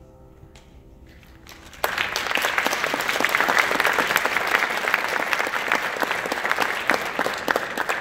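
The last chord of a grand piano fades away, then audience applause breaks out suddenly about two seconds in and carries on, dense and steady.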